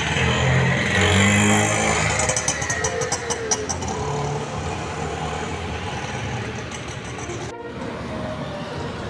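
Street traffic: a car driving past with engine and tyre noise, loudest in the first couple of seconds. There is a brief dropout about seven and a half seconds in.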